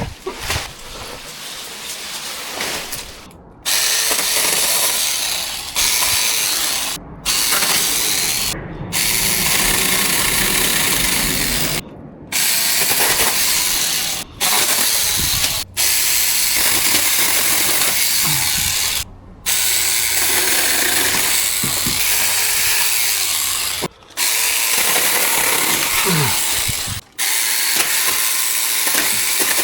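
Cordless electric mini chainsaw with a 6-inch chain and an 800 W motor, running and cutting through thin lemon-tree branches. It starts and stops abruptly many times. The first few seconds are quieter before the saw comes in loud.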